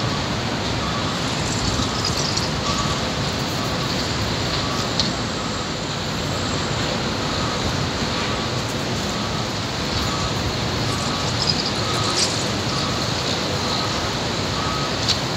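Steady noise of heavy multi-lane highway traffic, cars and trucks blended together, with a faint beep recurring about once a second.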